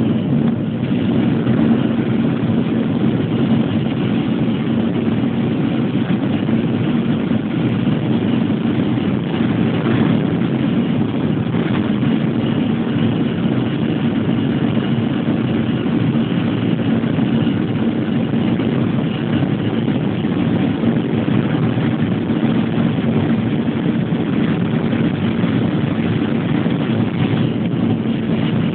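Airplane engine noise during takeoff: a loud, steady drone with a constant low hum.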